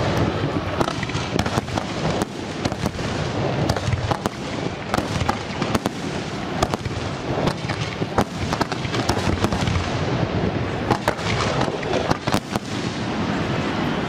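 Aerial firework shells bursting one after another in a fireworks display: sharp bangs coming thick and fast over a continuous rumble of explosions.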